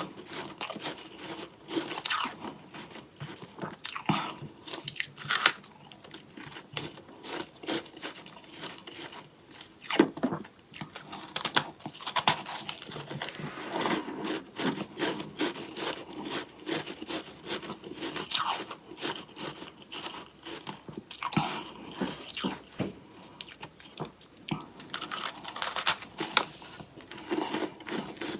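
A person biting and chewing a chunk of humidifier-grown freezer frost close to the microphone: dense, irregular crunching, with louder bites every few seconds.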